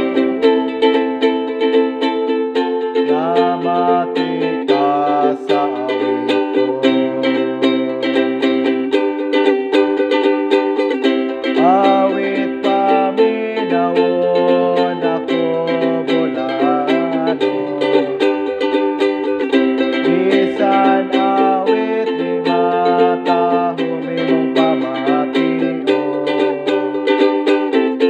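Ukulele playing the hymn tune, with a lower bass line moving in steps underneath and some sliding notes in the melody.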